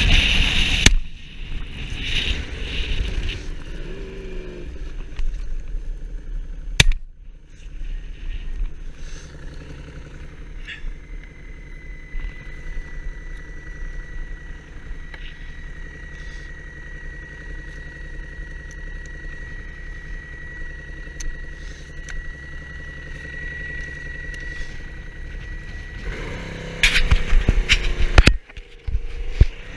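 A vehicle engine running steadily at low revs, with scattered clicks and knocks and a thin steady whine through the middle; the engine grows louder and changes pitch near the end.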